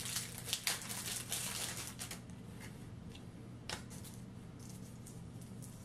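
Rustling and light clicking of packaging and small accessories being handled: plastic bags, paper inserts and small plastic parts. It is busiest in the first two seconds, then only a few separate ticks.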